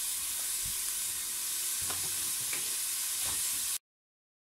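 Diced bacon sizzling as it fries in a metal pot, with a wooden spoon stirring it and knocking against the pot a few times. The sound cuts off suddenly near the end.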